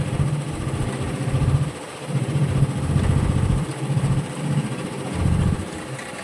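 Low, steady engine rumble on a fishing boat, uneven in loudness, swelling and easing every second or two.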